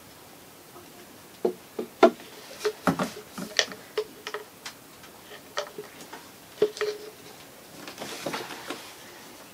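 Scattered clicks and light knocks of hands at work on an engine: a plastic oil jug set down and the engine's dipstick drawn out. Near the end comes a short soft rustle as the dipstick is wiped.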